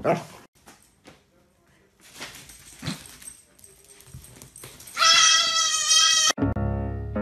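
A goat bleats once, loudly, a wavering call lasting over a second about five seconds in, after scattered scuffling and light knocks from a dog and a goat playing on a hard floor.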